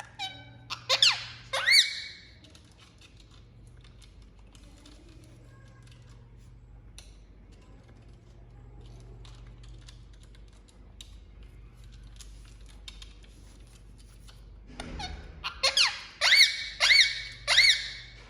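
Indian ringneck parrot giving short, shrill, rising calls: a quick cluster about a second in, then a run of four or five near the end. A steady low hum sits underneath.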